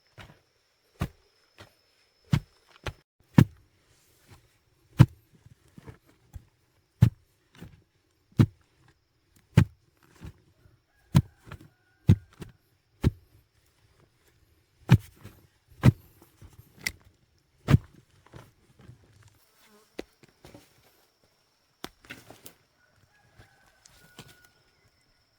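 Repeated heavy blows or knocks, about one a second, which thin out in the last several seconds. A steady high-pitched insect drone runs underneath.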